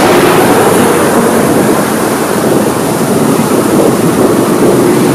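Loud, steady rushing of a large water fountain's jets splashing down.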